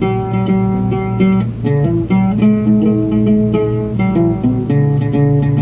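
Solo oud played by plucking, a melody of single plucked notes over a sustained low note, in a minor pentatonic scale.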